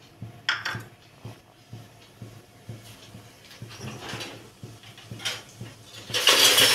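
Mustard seeds, cumin and dals crackling as they fry in hot oil in a steel kadai, a tempering in its early stage. A short clatter comes about half a second in and a longer, louder clatter near the end.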